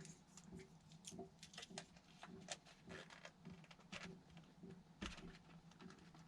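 Faint, scattered clicks and taps of small plastic and foam parts of an RC plane kit being handled and pushed into a tight-fitting slot, over a faint steady low hum.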